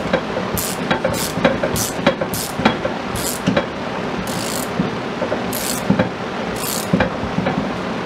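Hand ratchet clicking in short back-strokes while tightening the top nut of a front strut assembly, about eight ratcheting bursts. They come roughly every half-second at first and are spaced further apart in the second half.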